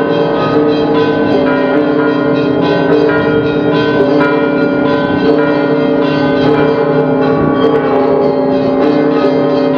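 The Orthodox church bells of Alexander Nevsky Cathedral ringing a full peal: many bells of different pitches struck in quick, overlapping succession, their tones ringing on into one another without a pause.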